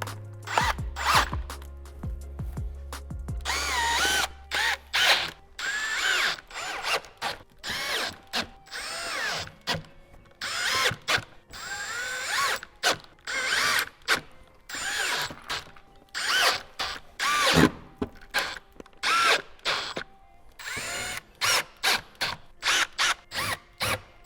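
Cordless drill-driver driving T15 Torx screws one after another in many short bursts, its motor pitch rising and falling with each burst.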